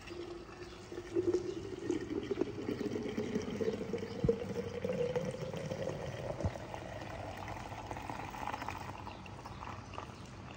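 Mint margarita being poured, its note rising steadily over about eight seconds as the vessel fills, with a couple of small knocks partway through.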